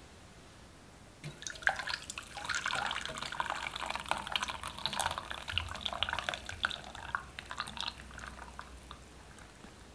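Liquid food mixture splashing and dripping in a dense run of small wet crackles, starting about a second in and dying away near the end.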